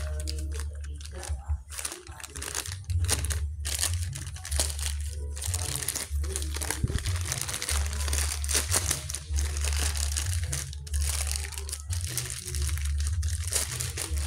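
Clear plastic parts bag crinkling and rustling in gloved hands as a new Honda engine mount is unwrapped, with a steady low hum underneath.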